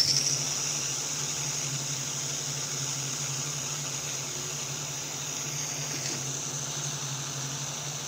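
Handheld butane heat tool running with a steady hiss, blowing hot air onto the heat-shrink tubing of a crimped female spade connector to shrink it.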